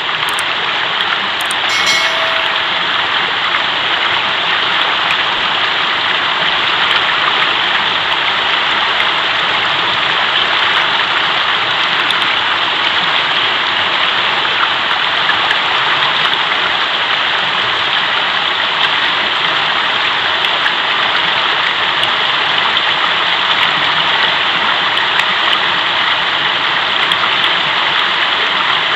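Mountain river flowing, a steady rushing of water.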